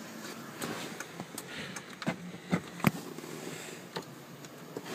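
Several light clicks and knocks over a faint steady background, the sharpest about two to three seconds in: hands and the handheld camera moving over the interior trim and dashboard controls of a car's cabin.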